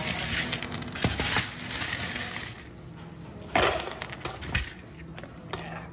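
Coins clattering and knocking as they are handled and dropped into a container on a scale, with a few sharper knocks, the loudest about three and a half seconds in.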